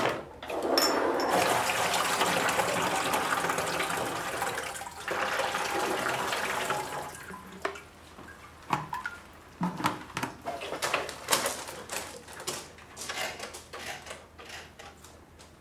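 Liquid poured from a container into a copper backpack sprayer's tank: a steady splashing pour lasting about six seconds, broken briefly midway. After it come scattered light clicks and knocks.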